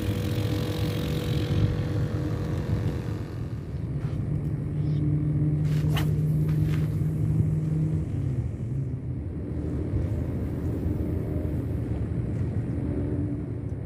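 Steady low drone of an engine running, a hum with several steady pitches. About six seconds in there is a brief swish as a long fishing rod is cast.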